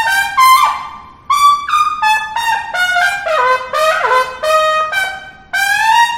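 Solo trumpet playing short phrases, a single melodic line of notes with brief gaps between the phrases.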